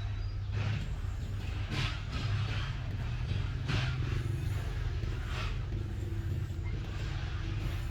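Heavy construction machine engine running steadily, with several short bursts of scraping or rushing noise on top.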